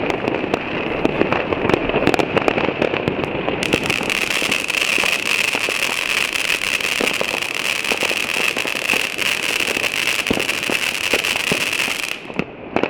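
Many New Year's fireworks and firecrackers going off together: a dense, continuous rattle of bangs and crackling. About three and a half seconds in, a steady high hiss joins it. Both die down near the end.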